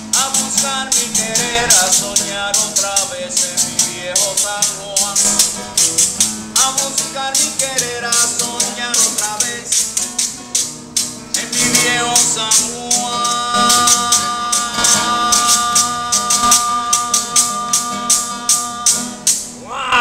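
Nylon-string classical guitar strummed and a gourd güiro scraped in a quick, even rhythm, with a man singing over them: Puerto Rican street music.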